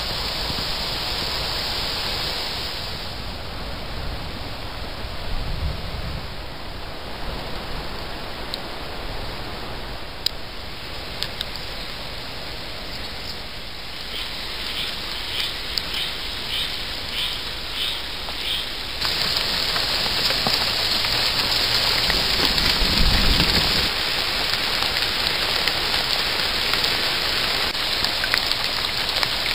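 Steady summer rain falling on foliage and on a puddle, growing louder about two-thirds of the way through. A brief low rumble comes a few seconds after the rise.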